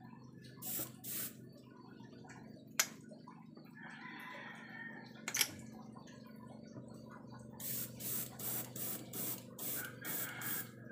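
Airbrush spraying gold paint in short hissing bursts, two about a second in and then a quick run of about seven near the end, over the steady hum of the air compressor. Two sharp clicks come in between.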